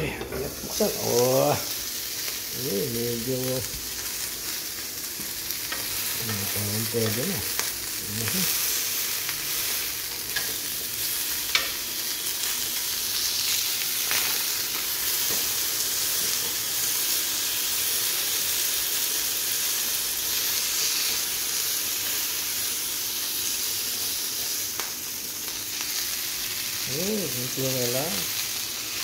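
Chicken pieces sizzling in a hot double-sided grill pan over a gas burner: a steady frying hiss, with a sharp click about twelve seconds in.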